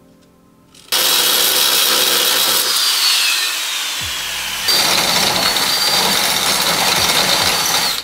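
Handheld power grinder on the car's sheet-metal weld seams, starting about a second in. Its high whine drops in pitch as it bites into the metal, it eases off briefly near the middle, then grinds again with a steady whine and stops right at the end.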